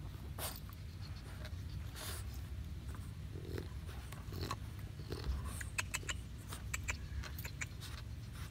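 English Bulldog gnawing and biting at a tree trunk's bark, with sharp cracking clicks, scattered at first and then coming thick and fast in the second half.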